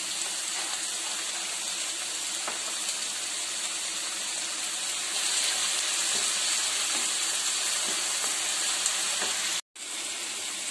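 Chopped tomatoes, mint, coriander and green chilli sizzling in oil in a pan as they are sautéed, a steady hiss that grows a little louder about halfway through. It breaks off briefly just before the end, and a quieter steady noise follows from a steel pot of boiled rice in its water.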